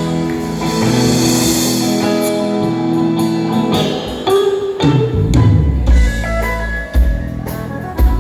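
Live band playing the opening of a song: held chords over a cymbal wash. About four and a half seconds in, the drums and bass come in with a steady beat.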